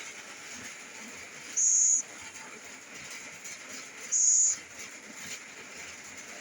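Scops owl giving two short, high hissing calls, about two and a half seconds apart.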